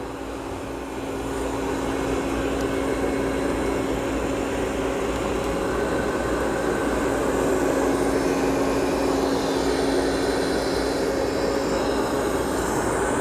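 Amarey A800 robot vacuum running on carpet: a steady motor and suction hum with brush noise, getting louder about a second in.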